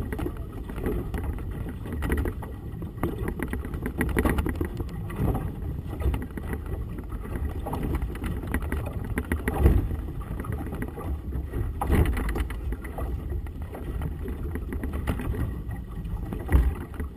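Gusty wind buffeting the camera microphone on a small boat on choppy water, heard as a low rumbling rush with irregular louder surges and water slapping the hull.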